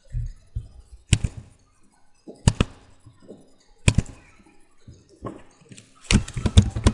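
Single sharp computer mouse clicks, roughly a second and a half apart, then a quick run of keyboard key taps near the end as an address is typed.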